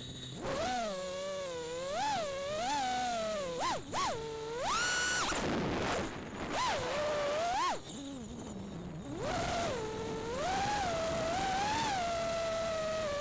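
Brushless motors and propellers of a 6S FPV quadcopter whining, the pitch rising and falling with the throttle. The whine starts about half a second in and climbs to a high, held whine around five seconds in, followed by a brief rush of air. It drops low around eight seconds before climbing again.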